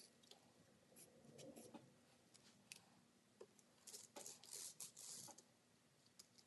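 Faint scratchy strokes of a Sharpie marker drawn along the edge of a glass pane onto perforated metal mesh, with a few light ticks. The longest run of scratching comes about four to five seconds in.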